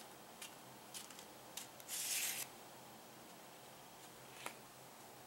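Quiet handling of a knife and its leather sheath. There are a few light clicks, then a short scrape of about half a second around two seconds in as the blade slides out of the leather sheath, and one more small click near the end.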